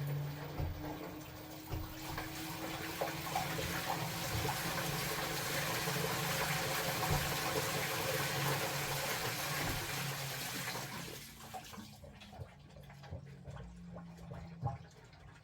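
Water rushing hard into the tub of an LG Tongdoli top-loading washing machine, with a low steady hum under it. The rush of water stops fairly sharply about three-quarters of the way through, leaving the hum and some faint drips and knocks.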